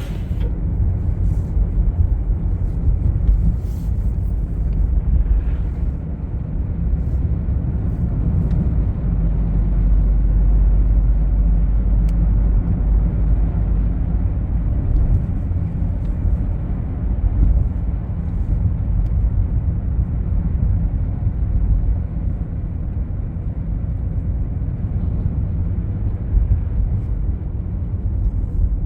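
A car driving: steady low road-and-engine rumble.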